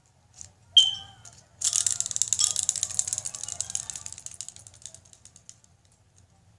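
A sharp click with a brief ringing tone, then a fidget spinner's bearing rattling fast as it spins, fading out over a few seconds as it slows down.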